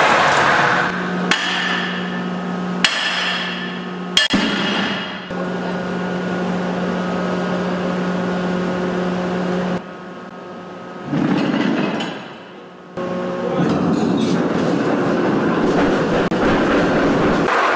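Heavy anchor chain running out across a warship's forecastle with a loud rushing rattle, which breaks off about a second in. Then a steady low hum with a few sharp metal clanks. From a little past halfway the chain's rushing rattle starts up again.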